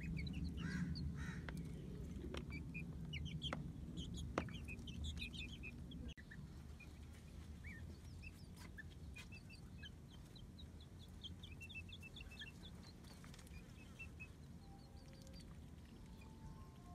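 Young chickens peeping with many short, high chirps as they peck at rice in a plastic basin, with a few sharp taps of beaks on the bowl in the first seconds. A low background rumble fades out about six seconds in.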